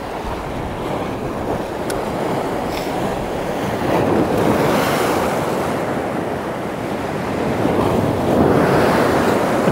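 Sea waves breaking and washing over the shore, with wind buffeting the microphone; the surf swells about four seconds in and again near the end, a set of bigger waves at high tide.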